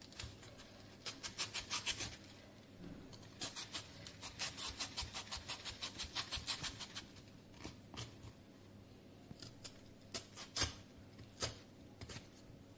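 Kitchen knife cutting the rind off a raw jackfruit: two runs of quick, crisp cutting strokes, about five or six a second, then a few single cuts near the end.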